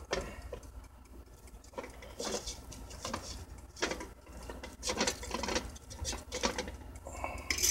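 Irregular light crackles and taps from a pulled-out air fryer basket of half-cooked, flour-coated chicken wings.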